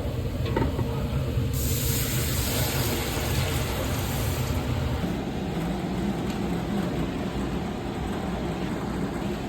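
Fish-poaching water being added to a pot of roux gravy, with a hiss for about three seconds, over a steady low rumble.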